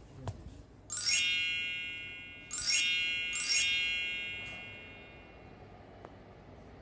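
Magic sparkle sound effect: a cascade of bright chime tones sweeping down in pitch and ringing out, heard three times in quick succession starting about a second in.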